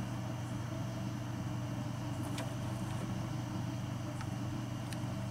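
Steady low electrical hum under a constant hiss, with a few faint ticks.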